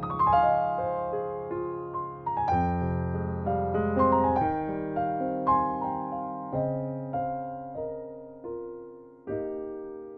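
Solo piano music at a slow pace, single notes and chords struck and left to fade. A final chord about nine seconds in is held and rings out.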